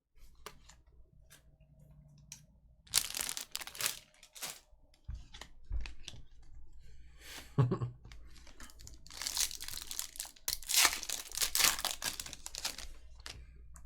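Trading-card pack wrappers being torn open and crinkled by hand, in two spells of tearing, about three seconds in and again from about nine to thirteen seconds, with small clicks between.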